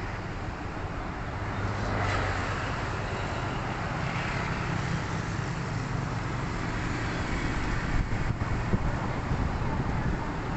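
Street traffic: a steady hum of cars and motorbikes passing, with a vehicle's engine drone swelling about four seconds in.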